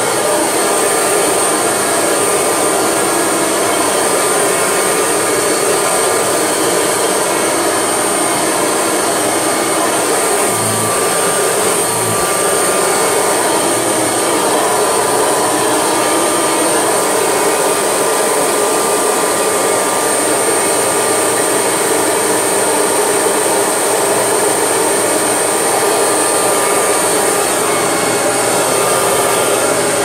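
Kirby Legend II upright vacuum cleaner running steadily while pushed back and forth over carpet: a loud motor and fan noise with a steady high whine on top, and two brief low knocks about a third of the way in.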